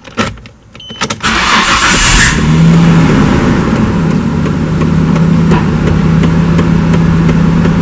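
Nissan R33 Skyline's RB25 straight-six cold start: a short burst of cranking about a second in, then the engine catches, flares briefly and settles into a steady idle. It fires right up on a cold morning, which the owner takes as the no-start cured by reconnecting an unplugged vacuum hose.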